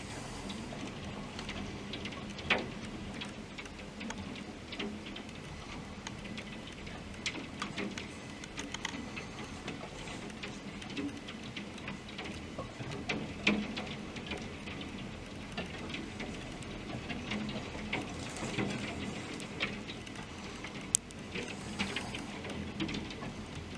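Large hailstones falling and striking hard surfaces: irregular sharp clicks and knocks over a steady patter of rain.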